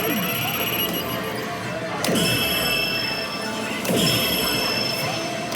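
Pachislot machine game sound effects: two crash-like hits, about two seconds in and again about four seconds in, each followed by a falling low tone and steady high electronic ringing tones.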